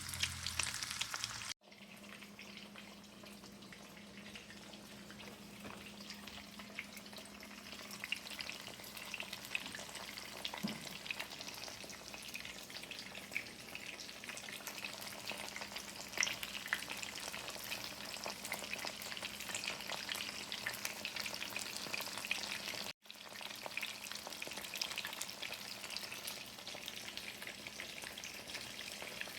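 Food frying in a pan: a steady sizzle full of small pops and crackles, over a faint steady hum. The sound drops out for an instant twice, about a second and a half in and again near the end.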